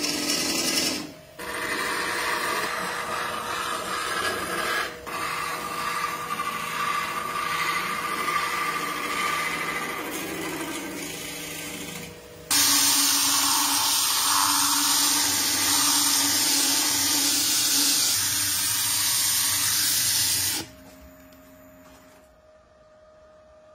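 Wood lathe spinning a blank while a turning gouge cuts into it: a steady motor hum under the scraping hiss of the cut. The sound breaks off and resumes a few times. From about halfway in it is louder and hissier, and near the end it drops to a faint hum.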